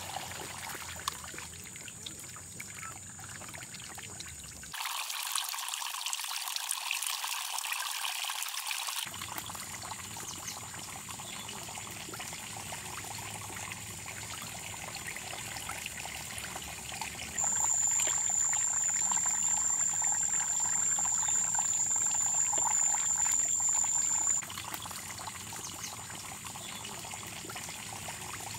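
Water trickling and pouring. A thin, steady high-pitched tone comes in about seventeen seconds in, is the loudest sound while it lasts, and stops about seven seconds later.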